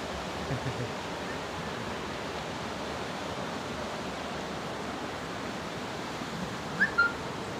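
Steady rushing wind in the trees and across the microphone, with a short bird chirp near the end.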